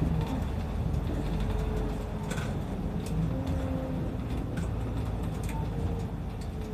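Route bus running, heard from inside the cabin: a steady low engine and drivetrain rumble with a faint whine that drifts slightly in pitch, and a few light clicks or rattles.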